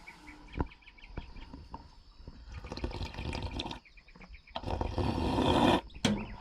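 A man slurping water from a weak-running drinking fountain, sucking the water in, with the loudest slurping near the end.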